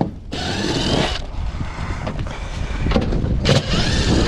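Cordless drill running in reverse, backing self-tapping screws out of a metal roof's ridge cap.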